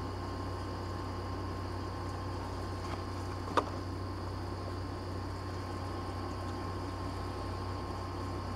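Steady low hum and hiss of a small motorized display turntable turning. About three and a half seconds in there is one sharp click of a plastic blister pack being handled.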